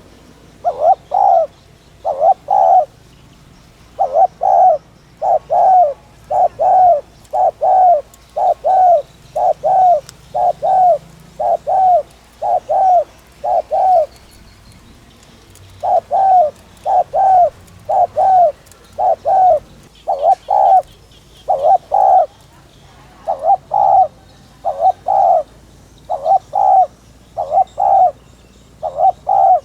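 Spotted dove (Streptopelia chinensis) cooing fast and insistently: short, low coos in quick pairs, repeated about every second and a half, with one pause of about two seconds midway. This is the urgent 'thúc' cooing that keepers play to rouse other doves.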